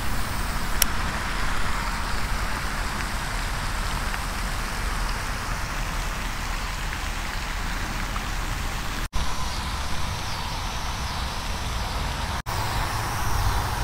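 Steady hiss of splashing water with a low rumble of wind on the microphone, broken twice by abrupt cuts.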